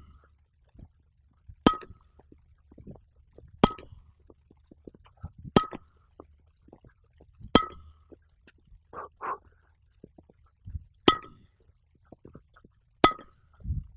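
Tennis volley drill against a ball machine: a sharp, ringing hit about every two seconds as balls are fed and volleyed with a narrow Sweet Spotter training racket, six in all, with a longer gap in the middle. Softer knocks fall between the hits.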